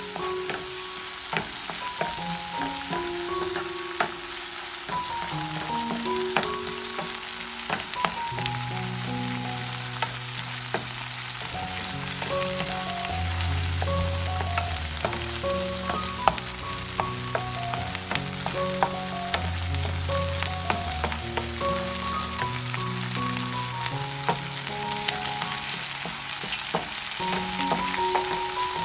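Chopped onions, curry leaves and ginger-garlic paste sizzling in hot oil in a frying pan, stirred with a wooden spatula that knocks and scrapes against the pan now and then. A background melody plays underneath.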